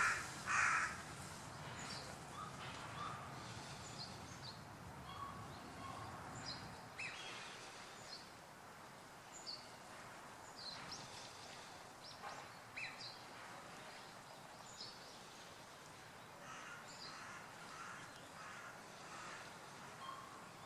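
Birds calling outdoors: scattered short, high chirps a few times every couple of seconds over a faint background hiss, with one louder burst of sound near the start.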